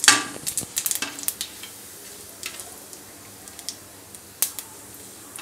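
Mustard, cumin seeds and asafoetida frying in hot coconut oil and ghee in a stainless steel pan: a steady sizzle with scattered sharp pops from the seeds. A wooden spatula stirs and scrapes the pan, with a cluster of clicks and scrapes in the first second and a half, the loudest right at the start.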